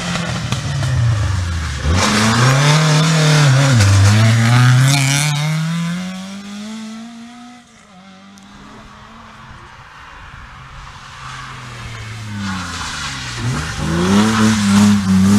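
Rally car passing at speed, its engine note rising and falling as it accelerates, then fading away. A second rally car approaches and gets loud near the end, its engine pitch dipping once before climbing again.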